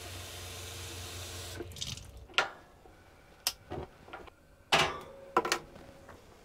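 Water running, as when filling a pot for boiling, for about a second and a half before it stops. Then several sharp clicks and knocks follow, a second or so apart.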